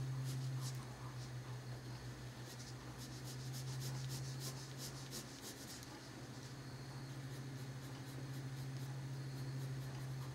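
Colored pencil scratching on paper in runs of quick, short strokes, over a steady low hum.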